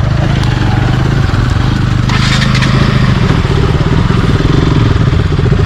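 A 200 cc single-cylinder motorcycle engine running at low speed on a dirt track. About two seconds in there is a brief crunch and clatter, as of tyres over loose stones.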